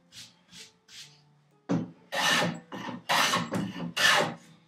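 A No. 5 jack plane with a heavily cambered iron, set for a very heavy cut, shaving wood in quick strokes to cut a 45-degree chamfer. A few light strokes come first, then from about two seconds in a run of six or so much louder strokes.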